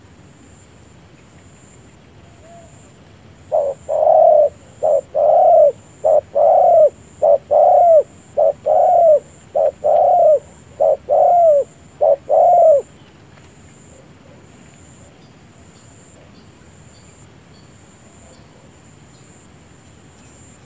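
Spotted dove cooing: a fast run of short, arched coos that each rise and fall, about nine seconds long, starting a few seconds in.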